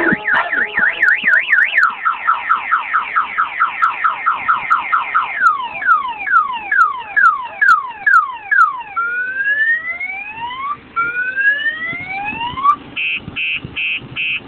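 Car alarm siren set off by heavy bass vibration, cycling through its tones: a fast up-and-down warble, then a run of falling whoops, then slow rising sweeps, and near the end a rapid string of short beeps, about three a second.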